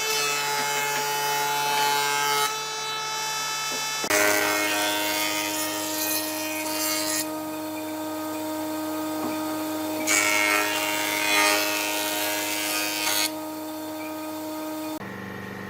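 Electric woodworking power tools running with a steady motor whine, overlaid by the rough hiss of the tool working wood, which comes and goes. The pitch jumps abruptly about four seconds in and again near the end, as one tool sound gives way to another.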